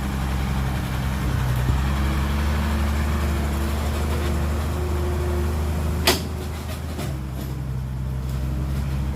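Hyundai dump truck's diesel engine idling steadily, with one short, sharp sound about six seconds in, after which the engine note shifts.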